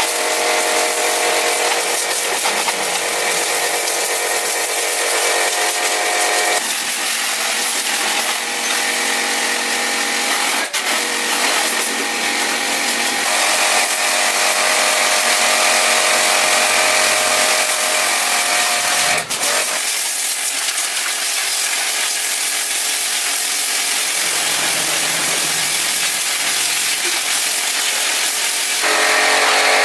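A power tool running continuously with a steady whine over loud hiss. Its pitch pattern shifts abruptly a few times.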